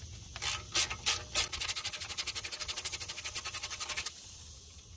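Hand ratchet with an 8 mm socket clicking as it backs out an integrated wheel end (IWE) bolt: a few separate clicks, then a fast, even run of about ten clicks a second that stops about four seconds in.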